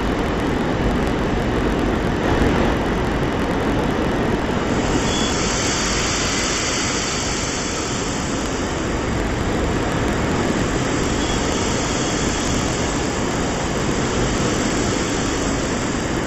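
Steady noise of a jet aircraft in flight, heard from inside the aircraft, with the airflow hiss growing brighter about five seconds in.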